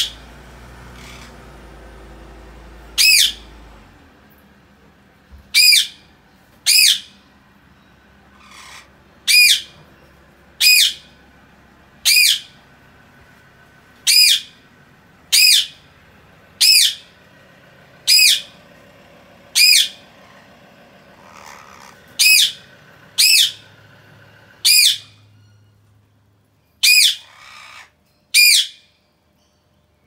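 Indian ringneck parakeets giving short, loud, shrill squawks, one every second or two, about sixteen in all, with a few softer chirps between them.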